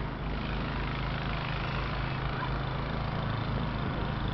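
An engine running steadily at idle, with a constant low hum under a hiss of noise.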